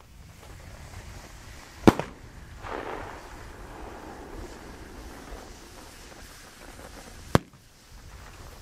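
Two single sharp firework bangs about five and a half seconds apart, the first followed about a second later by a softer rushing noise that fades.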